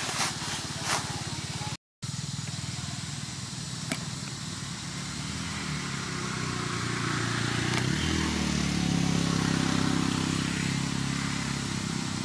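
A motor vehicle's engine running steadily, growing louder to a peak about nine seconds in as it passes by, then easing off. Two short clicks come near the start, and the sound cuts out completely for a moment at about two seconds.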